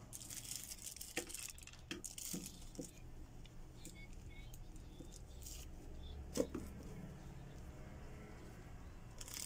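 Clear plastic wrapping crinkling, followed by light clicks and knocks of plastic parts being handled, with one louder knock about six seconds in.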